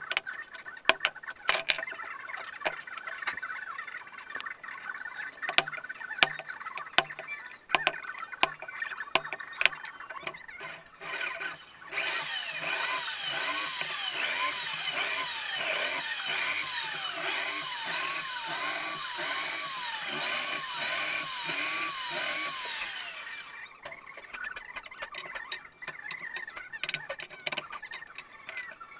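A series of light hammer taps on wood, then an electric drill runs for about eleven seconds while boring into small wooden blocks, its pitch dipping and recovering about once a second as the bit bites. After it stops, light clicks of wooden blocks being handled.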